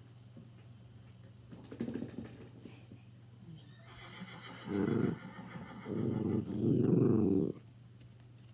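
Recorded horse neighing played through a TV's speakers: a short call about five seconds in, then a longer one lasting about a second and a half, over a steady low hum.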